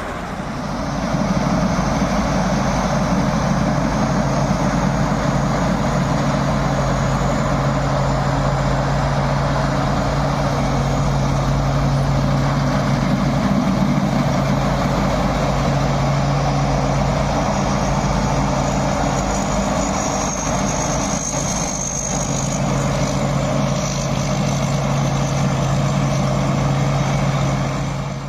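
An engine running steadily with a constant low hum and a wide noise over it.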